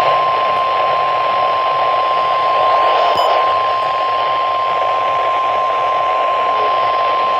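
NOAA Weather Radio warning alarm tone: one steady high tone of about 1050 Hz, held over receiver static. It signals that a warning message, here a severe thunderstorm warning, is about to be broadcast.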